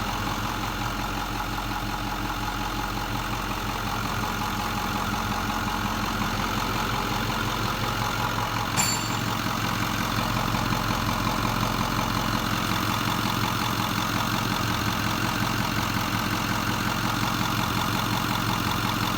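Ford 6.4-litre Power Stroke V8 turbo-diesel idling steadily, the rough idle with vibration that the owner is complaining of. A single sharp click sounds about nine seconds in.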